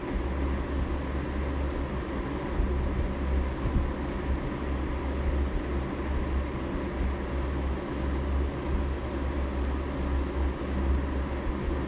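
Steady low rumble with a faint hum running under it, and no clear events.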